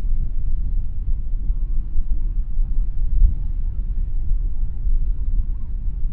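Wind buffeting the microphone: a loud, low rumble that rises and falls unevenly.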